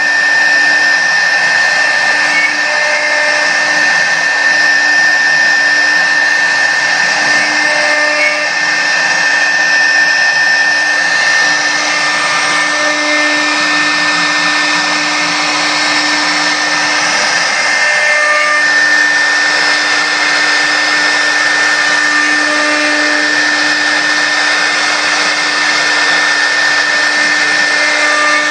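Air-cooled spindle of a 4-axis CNC router running with a steady high whine while its bit cuts into a wooden cylinder turning on the rotary axis, over a continuous hiss of cutting.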